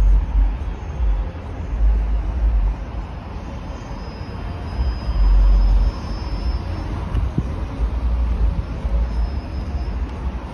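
Road traffic passing on a multi-lane city street: a steady wash of car tyre and engine noise. Under it a heavy low rumble swells and fades in several surges, the loudest about five to six seconds in.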